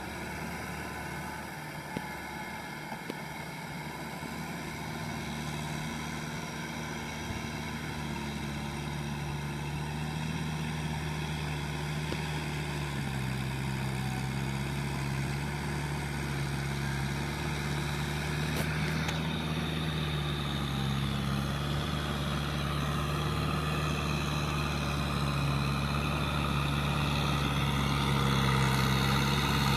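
Kubota M6040SU tractor's diesel engine running steadily as the tractor works a flooded paddy, growing gradually louder as it draws near.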